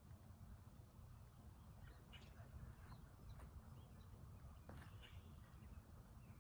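Near silence outdoors: a faint low rumble with a few scattered faint bird chirps.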